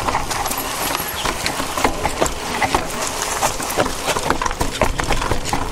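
E-mountain bike clattering over a rough trail: a dense, irregular run of knocks and clicks over a constant low rumble.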